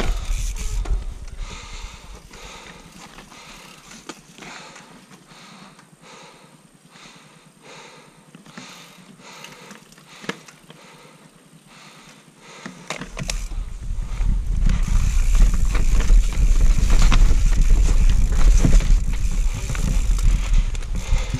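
Mountain bike riding down a dry, rocky dirt trail: knobby tyres crunching over dirt and stones and the bike rattling over bumps. About two-thirds of the way in, heavy wind buffeting on the microphone comes in loud and stays.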